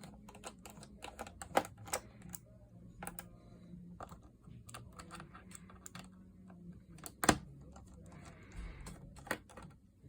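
Irregular light clicks and taps of a small screwdriver and screws against a Chromebook's plastic case as its bottom screws are removed, with one sharper knock about seven seconds in.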